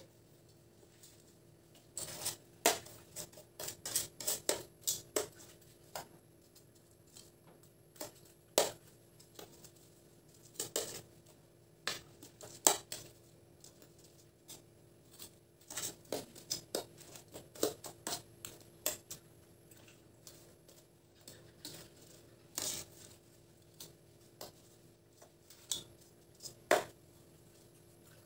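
Metal kitchen tongs clicking and scraping against ceramic plates in irregular sharp taps as fried banana slices are turned in sugar. A faint steady hum runs underneath.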